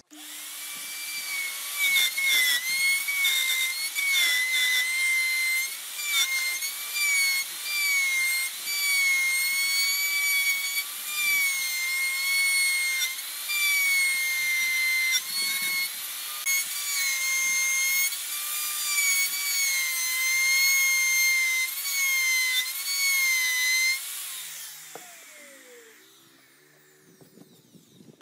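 Electric router running at high speed with a high whine, its pitch dipping and recovering as the bit cuts a bowtie-inlay recess into a wooden tabletop. Near the end the whine falls away as the router winds down.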